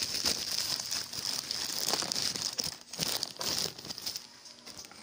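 Thin black plastic bag crinkling and rustling as hands rummage inside it. It dies down after about four seconds.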